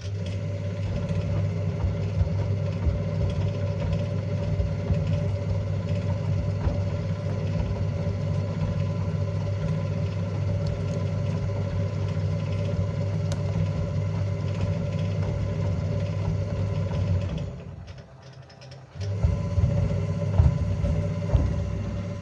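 Miele W 2573 front-loading washing machine tumbling a load of shoes: a steady motor hum as the drum turns, with irregular dull knocks of the shoes in the drum. About three-quarters of the way through it stops for about a second and a half, then starts turning again, as the drum reverses direction in the wash cycle.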